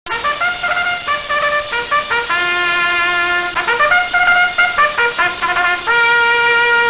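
A trumpet playing a short tune of quick notes. It ends on a long held note that starts about six seconds in.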